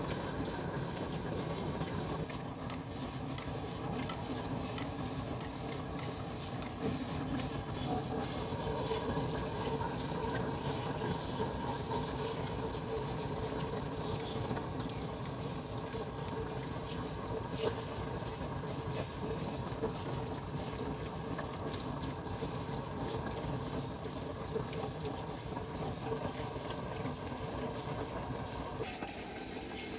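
Concrete pipe spinning machine running: the steel pipe mould turns steadily on its drive rollers with a constant mechanical hum. Scattered clicks and scrapes come through as concrete is shovelled into the open end of the mould.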